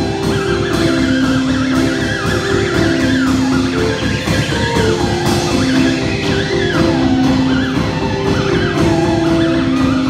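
Live garage rock band playing an instrumental: a drum kit keeps a steady beat under a repeating riff of held low notes, while a high lead line slides up and down in pitch like a wailing siren.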